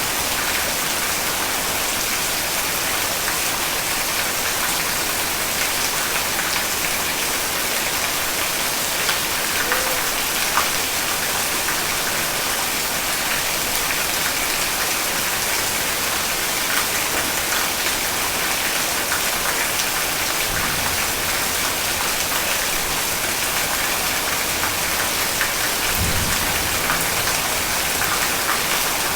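Heavy rain falling steadily, a dense, even hiss of drops on surfaces, with a brief low rumble near the end.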